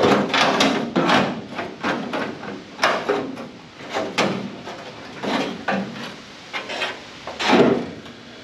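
The old sheet-steel rear quarter panel of a Pontiac Firebird being wrenched back and forth by hand, its metal scraping, creaking and knocking in irregular bursts as it is worked loose where it is still stuck to the body.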